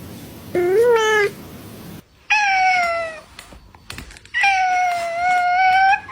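Domestic cats meowing: three separate meows, a short one that rises in pitch, then one that falls, then a longer, steady one.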